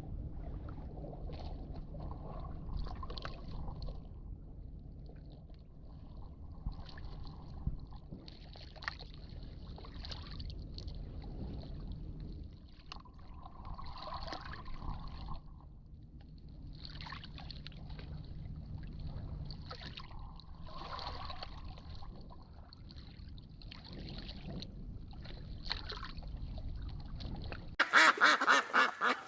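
Ducks calling on and off over a steady low rumble. Shortly before the end it cuts abruptly to much louder, closer calls.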